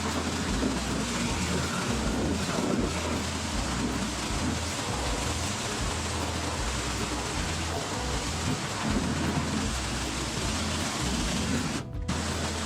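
Pressure washer spraying water against the walls of a potato storage building, a steady loud hiss of high-pressure spray.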